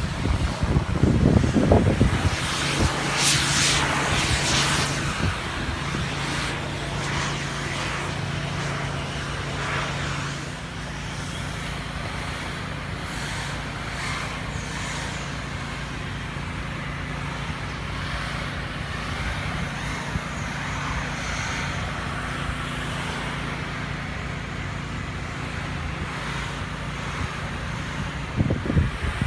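A steady engine hum with a constant low drone and street traffic noise around it. It is louder in the first few seconds and then settles.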